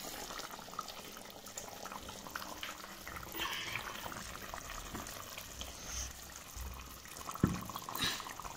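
Faint sizzling and bubbling of hot food cooking on the stove, with small crackles throughout and one sharp knock about seven seconds in.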